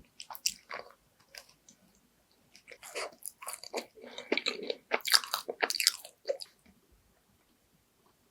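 Close-miked biting and chewing of a macaron: crisp crunches of the shell and sticky chewing of its dense filling, in irregular bursts that are busiest in the middle.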